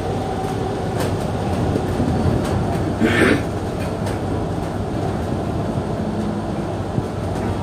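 Cabin noise inside a moving bus: a steady engine and road rumble with scattered rattles and knocks, and a short hiss about three seconds in.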